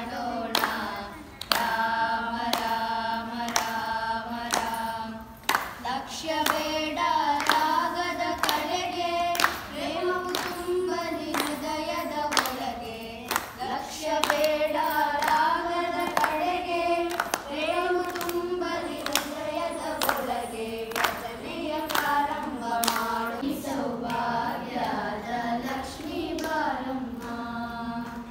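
A group of girls and women singing a devotional song together in unison, with steady hand claps keeping time.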